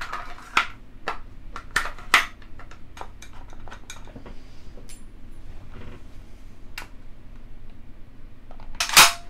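Metal and wood parts of a Remington 742 semi-auto rifle clicking and knocking as its wooden forend is fitted over the barrel and fastened with a screwdriver during reassembly. A louder clatter comes near the end.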